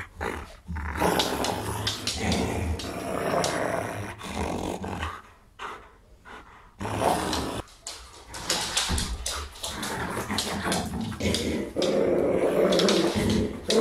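Belgian Malinois growling in play with a rag tug toy in its mouth, dropping to a quieter stretch about five to seven seconds in before growling again.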